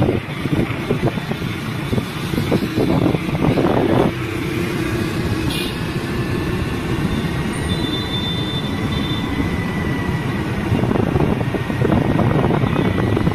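Motor scooter riding on a hill road: its small engine running under gusty wind buffeting on the microphone.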